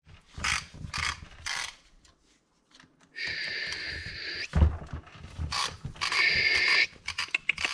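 Tools working on the screws of a Beta Rev3 250 four-stroke engine's cylinder head cover: a few scrapes and knocks, then two steady runs of a driver about a second and a half and a second long, then a quick series of clicks near the end.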